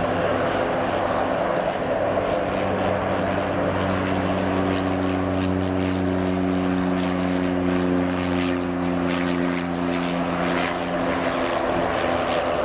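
Airbus A330-300's Rolls-Royce Trent 700 turbofans at takeoff thrust as the airliner lifts off and climbs away: a steady, loud jet noise with low droning tones underneath.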